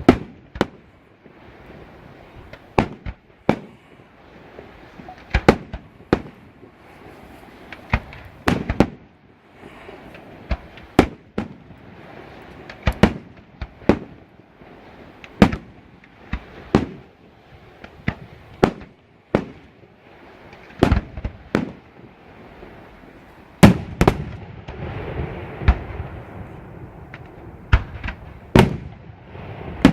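Aerial firework shells bursting overhead: sharp bangs at uneven intervals, often in quick pairs or triplets, over a continuous crackling rumble and echo. About three-quarters of the way through, the bangs and the rumble get louder and denser.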